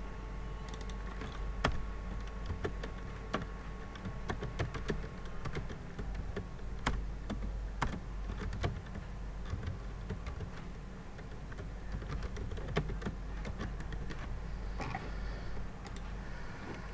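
Irregular keystrokes on a computer keyboard as a name is typed, over a low steady hum.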